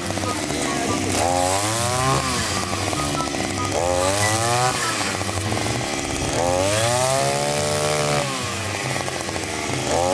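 Ryobi 143R backpack two-stroke brush cutter with a 40 mm piston cutting tall grass. Its engine revs up and drops back about four times: each throttle burst is a rising whine that falls away again.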